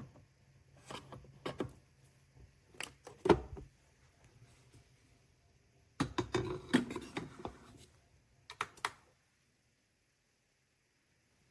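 A series of light clicks and knocks from objects being handled. A louder knock comes about three seconds in, and a busier run of clicks and knocks follows around six to eight seconds in.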